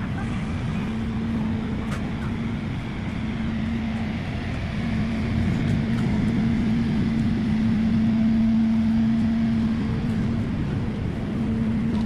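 A motor vehicle engine running steadily, a low hum that grows louder toward the middle and then eases, over street noise.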